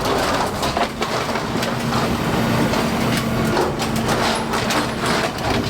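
A bulldozer's engine running steadily under load, with repeated sharp cracks and crunches of a house's masonry being broken down.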